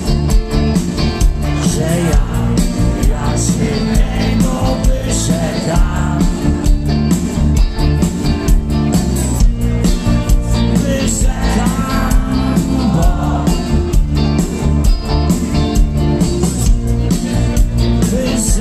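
A rock band playing live through a large stage PA, with electric guitars, bass and drums, in a stretch with no clear lead vocal, heard from among the audience.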